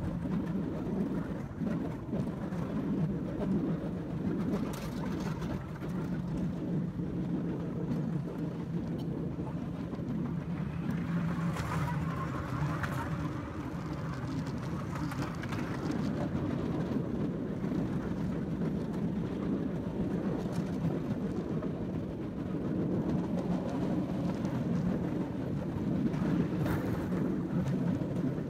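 Bamboo train (norry) running along the rails: its engine drones steadily, with a few faint clicks from the wheels on the track.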